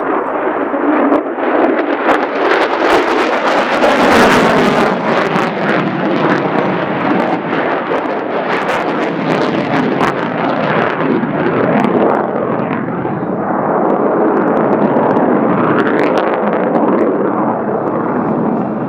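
Lockheed Martin F-35A Lightning II's single Pratt & Whitney F135 turbofan on a display pass: loud jet noise full of crackling, loudest about four seconds in and staying loud throughout.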